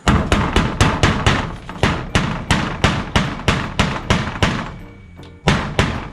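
Hammer driving nails: a quick, even run of about twenty blows at roughly four a second, then a short pause and two final blows close together.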